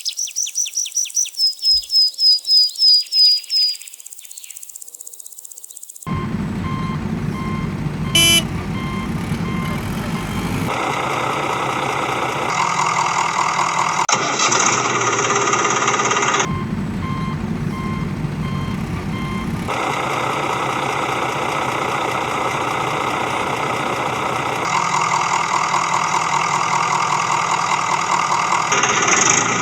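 Cartoon sound effects: a quick run of high chirps for the first few seconds, then a construction-vehicle engine running steadily, with a reversing beeper sounding in some stretches. There is a short, loud tone about eight seconds in.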